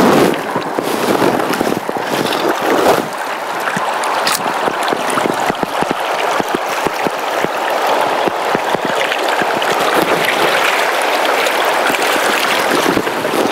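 Fast river water rushing steadily over a rocky riffle, with scattered light clicks through the middle.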